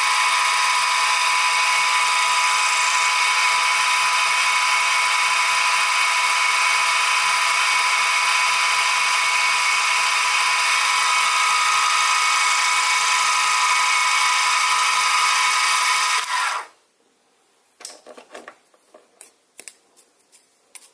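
Sieg SX2P mini mill spindle running a 3 mm end mill through brass: a steady, loud whine made of many high tones. It cuts off suddenly about sixteen seconds in, followed by a few light clicks and knocks.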